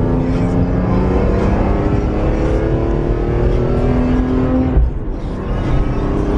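BMW E46 M3's S54 straight-six accelerating hard, its engine note climbing steadily. The note drops briefly about five seconds in as the SMG gearbox shifts up, then climbs again.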